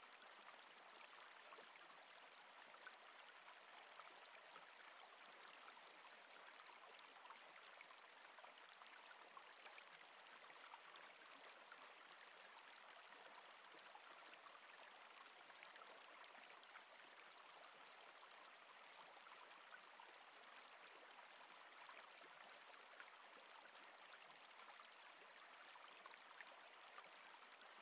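Faint, steady murmur of flowing river water, an even rush with no distinct splashes.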